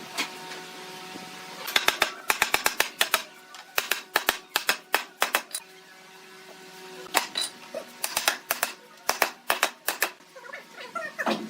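Bursts of quick, sharp taps or knocks, several a second, over a faint steady hum.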